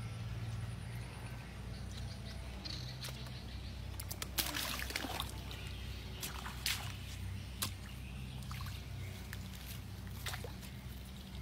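Water sloshing and splashing, with a few sharper splashes about four, seven and ten seconds in, over a steady low hum.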